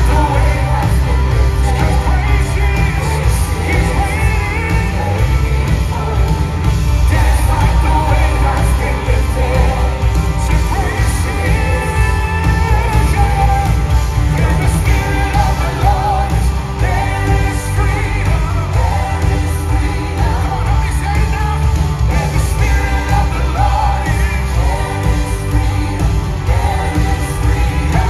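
Live band playing with a lead singer and backing singers over electric guitars and heavy bass, loud and steady throughout.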